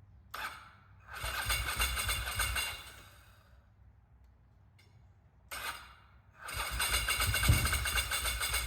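1994 Ducati Monster 900's carbureted air-cooled V-twin being started: a short crank, then it runs for about two seconds before dying away. A second short crank about five and a half seconds in, and it catches and keeps running.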